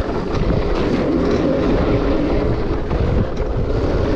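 Yamaha dirt bike engine running at a steady pace while riding, with wind noise on the helmet microphone.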